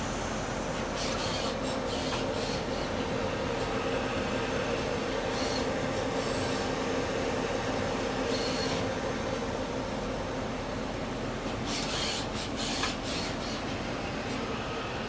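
Citizen L20E Swiss-type CNC lathe running: a steady machine hum, with short bursts of hiss several times.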